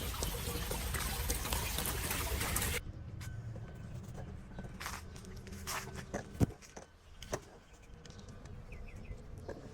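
A steady rushing noise that cuts off suddenly about three seconds in, followed by scattered knocks and clicks, the loudest a single thud a little after the middle.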